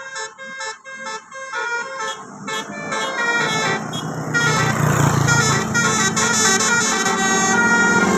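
Bus's multi-tone telolet 'basuri' horn playing a stepping melody of notes. About three seconds in it gets louder, with a low engine rumble beneath the horn tones.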